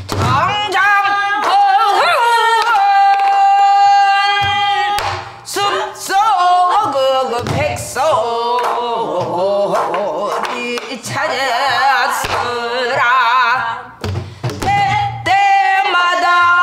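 A woman singing a Korean danga in pansori voice, with long held notes and wavering, shaken ornaments, accompanied by a few sparse strokes on a buk barrel drum.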